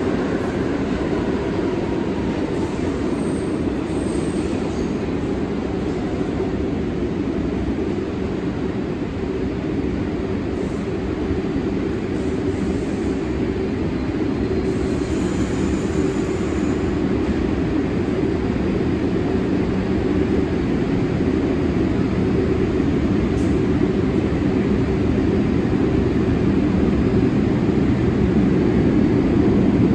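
New York City subway train rolling along the track through the underground station, a steady low rumble that grows louder near the end.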